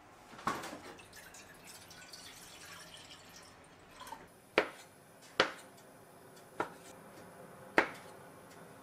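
Bonito broth trickling from a glass jug into a stainless saucepan. Then a kitchen knife cuts down onto a wooden cutting board in four sharp chops, about a second apart.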